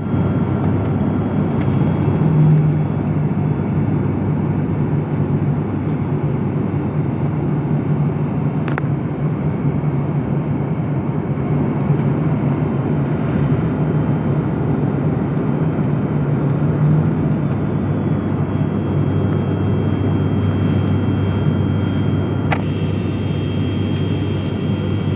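Airliner engines droning steadily, heard from inside the passenger cabin in flight, with a steady low hum under a loud rushing noise. A single sharp click comes about nine seconds in.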